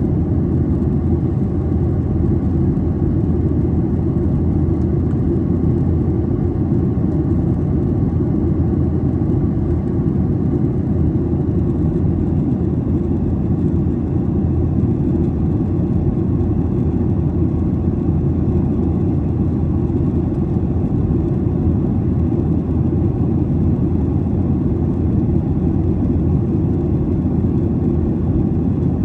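Steady low rumble inside a jet airliner's cabin in flight: engine and airflow noise heard at a window seat, holding the same level throughout.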